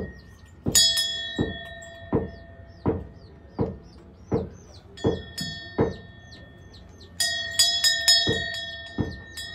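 Brass hand bell rung in a steady rhythm, about one stroke every three-quarters of a second, its ringing tone swelling fresh about a second in, near the middle and again near the end.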